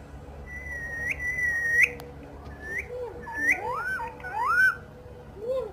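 Green pet parrot whistling: one long held note of about a second and a half that flicks upward at its end, then a run of short rising chirps and arching up-and-down whistles.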